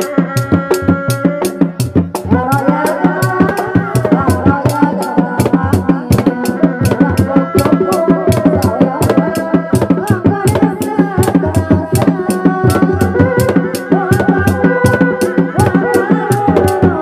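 Reak ensemble music: dogdog drums beating a fast, steady rhythm, with a wavering melody played over it.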